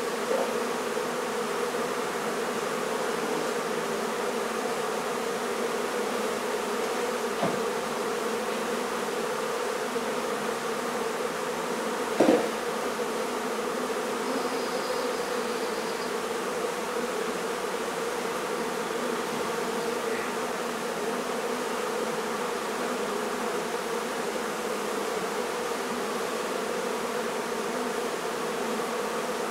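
Honey bee colony buzzing in a steady, dense hum from a hive being cut out and disturbed. A faint knock comes about seven seconds in, and a louder knock about twelve seconds in.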